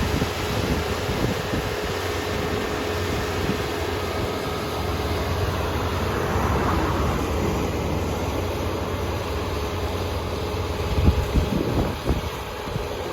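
Kubota ER470 combine harvester running steadily with a constant engine drone, a few louder knocks near the end.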